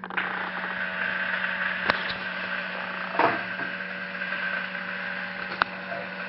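Small 10 RPM geared motor running steadily as it turns a vending machine's dispensing cylinder, with a few sharp clicks and a knock about three seconds in.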